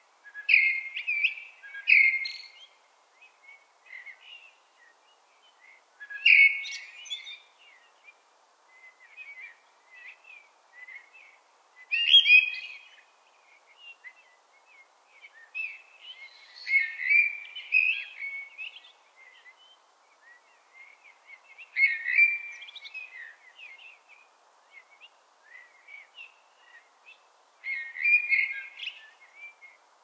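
Eurasian blackbird singing: six separate warbled phrases, one every five or six seconds, each with higher, squeakier notes, and fainter scattered bird notes in the pauses between.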